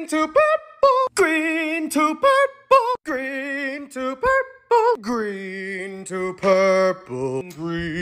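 Unaccompanied singing voice holding a melody in separate sung notes with a wavering pitch. About five seconds in, the voice drops to a lower register.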